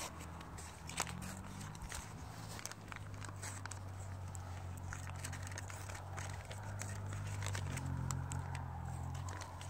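Scattered crinkling and small clicks of gloved hands handling white backing paper or tape and the mount's metal parts on roof shingles, over a steady low hum.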